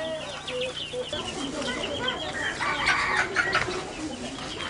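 Chickens clucking, many short calls overlapping, busiest around the middle.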